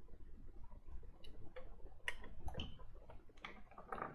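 Irregular light clicks and taps, about a dozen, as hands handle a PC power supply's metal chassis and parts.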